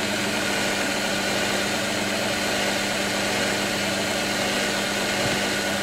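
A 1956 Singer 201K sewing machine running steadily at a constant speed, an even mechanical hum with a few steady tones, its needle bar going up and down. Just cleaned, oiled and given a new belt, it is sounding a lot happier, running smoothly.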